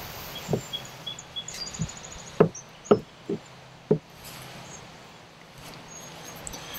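About half a dozen short, sharp knocks over the first four seconds: a flathead screwdriver tapping and pressing against a polyethylene kayak hull while smoothing melted plastic into a weld repair.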